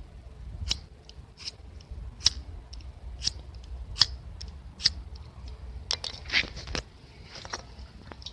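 A hand-held lighter being struck over and over, a sharp click roughly once a second, with a few quicker, rougher clicks a little past the middle.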